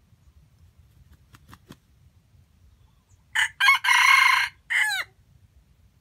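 Red junglefowl (wild chicken) rooster crowing once, about three and a half seconds in: a short crow in four quick parts, the last falling in pitch and cutting off abruptly.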